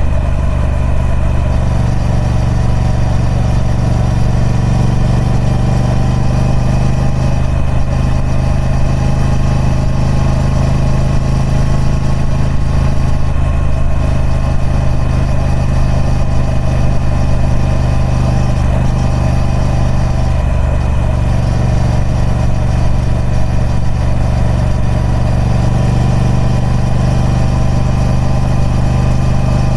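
Triumph Speed Twin 1200's parallel-twin engine running at a steady, even engine speed through its stock exhaust.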